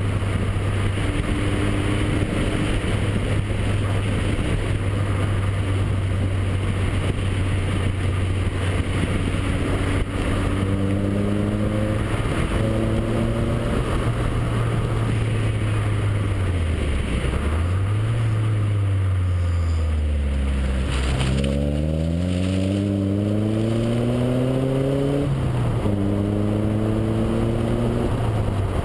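Nissan 240SX's four-cylinder engine running under road and wind noise, heard from a camera mounted on the outside of the car while it drives at a steady speed. About two-thirds of the way through, the engine note sinks as the car slows, then climbs steadily as it accelerates and drops sharply with a gear change before settling again.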